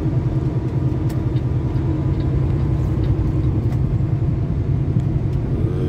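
Steady low drone of a Kenworth semi truck's diesel engine and road noise, heard inside the cab while cruising at highway speed.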